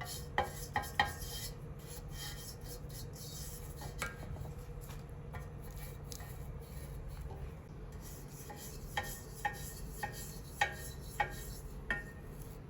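Brass samovar parts clinking and knocking as they are handled, with scraping and rubbing in between. There is a cluster of ringing clinks near the start and another in the last few seconds.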